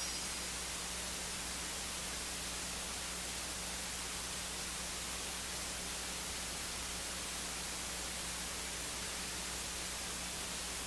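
Steady electronic hiss from the recording chain, with a low steady electrical hum beneath it and no other sound.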